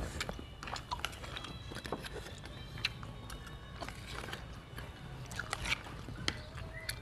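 Close-up chewing and mouth sounds of a man eating spicy meatballs, with scattered light clicks of a metal spoon and fork against a plastic plate.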